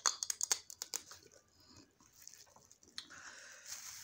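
Close-miked eating of snow crab: biting, sucking and chewing meat from the shell, with a quick run of sharp clicks and crunches in the first second, then quieter chewing.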